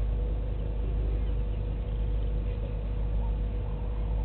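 Steady low rumble of outdoor background noise with a constant faint hum, and faint short bird calls coming in during the second half.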